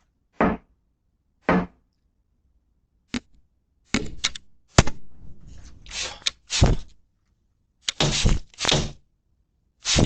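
Heavy thuds and knocks on a door. Two single blows about a second apart, then a lone knock, then quicker clusters of bangs.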